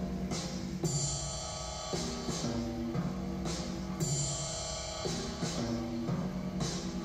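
Drum kit played along to a recorded song: steady pitched backing music with cymbal crashes about a second in and again about four seconds in.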